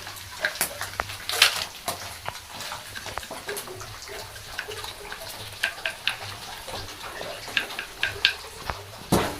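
Kitchen handling noises: scattered taps, clinks and scrapes of utensils over a low steady hum, with a louder knock near the end.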